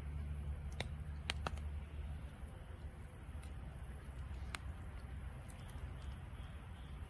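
Wood campfire burning: a low steady rumble with a few sharp crackles and pops, two close together just over a second in and another a little past the middle.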